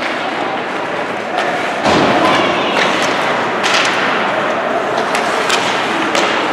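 Ice hockey play on the rink: a steady hiss of skates and arena noise, with sharp stick-and-puck knocks and a heavy thump against the boards about two seconds in.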